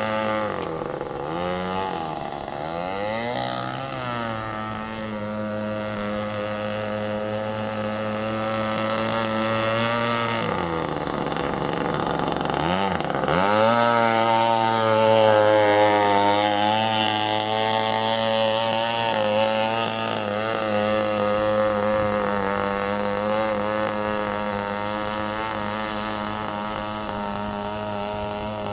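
Homemade RC boat's 21.2 cc Echo string-trimmer two-stroke engine with a straight-pipe exhaust, running at high revs. The revs dip and pick back up a few times in the first half. The sound is loudest as the boat passes close, about halfway through.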